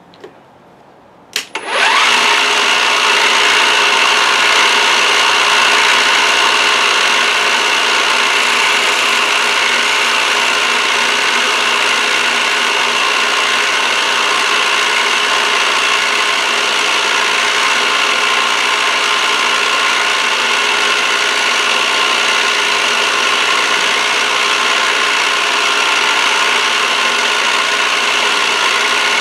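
A milling machine's spindle switches on with a click about a second and a half in and comes up to speed, then runs steadily with a high whine as the end mill cuts along the edge of a clamped copper bar.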